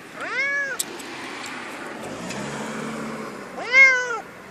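Domestic cat meowing twice, each meow rising and then falling in pitch. The second meow, near the end, is louder.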